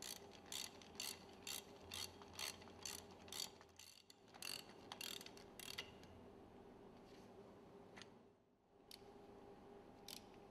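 Ratcheting ring spanner clicking in a steady rhythm, about two clicks a second, as the piston rod screws are run down into the piston crown; after about six seconds the clicks thin out to a few scattered ones. A faint steady hum lies underneath.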